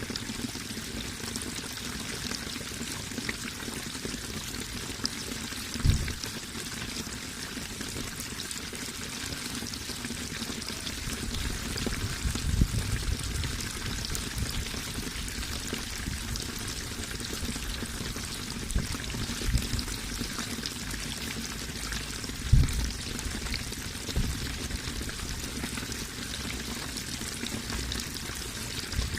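Running water pouring and trickling steadily, with a few short low thumps now and then.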